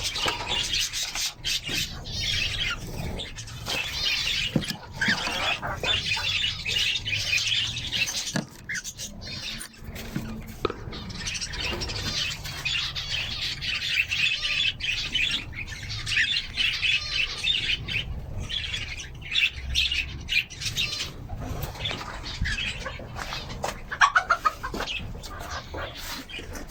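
A flock of small caged birds chirping and twittering continuously, with frequent wing flaps and sharp scuffling clicks; a louder burst of clicks about 24 seconds in.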